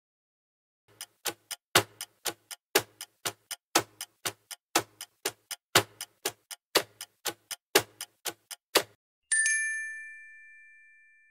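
Clock ticking, about two ticks a second for around eight seconds, then a single bell-like ding that rings out and fades.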